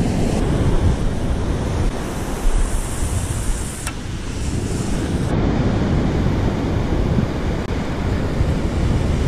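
Wind buffeting the microphone over the steady wash of surf breaking on the beach, with a single sharp click about four seconds in.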